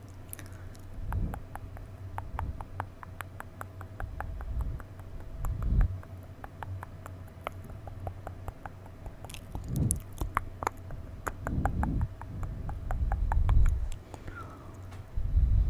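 Wet mouth sounds close to the microphone: a rapid run of tongue and lip clicks at about three to four a second, mixed with several low, muffled thumps.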